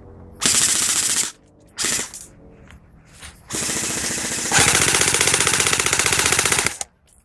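Airsoft guns firing full-auto bursts of rapid clicks: a burst of about a second, a short one, then a long burst of about three seconds that gets louder partway through.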